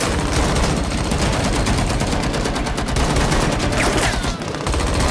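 Rapid automatic gunfire, a dense run of shots fired in quick succession, with a brief break about four and a half seconds in.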